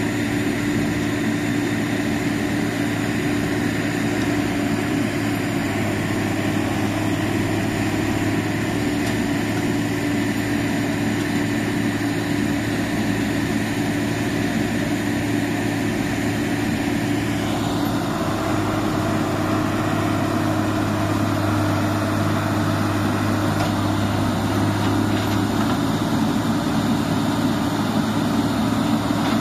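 Heavy diesel machinery running steadily, from a long-arm Hitachi EX120 excavator working beside a combine harvester stuck in a rice paddy, with a deep, even engine drone. About halfway through, a brighter, hissing layer of machine noise joins the drone and stays.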